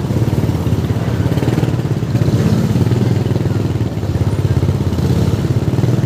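Motorcycle engine running at a steady road speed, heard from the rider's own bike, with a rapid even pulse of engine firing and some road and traffic noise around it.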